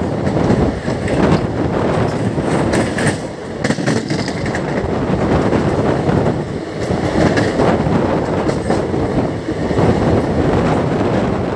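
Passenger train coach running along the track: a steady rumble of wheels on rails, with sharper clickety-clack as the wheels cross rail joints, thickest a few seconds in.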